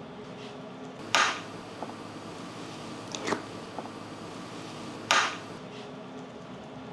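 Someone eating with crunchy bites: two sharp, loud crunches about four seconds apart, with lighter clicks between them, over a steady low hum.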